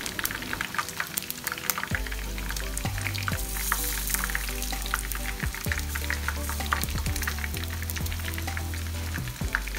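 Chicken pieces frying in hot oil in a pan, a steady sizzle with dense crackling and popping. Soft background music with a low bass line comes in about two seconds in.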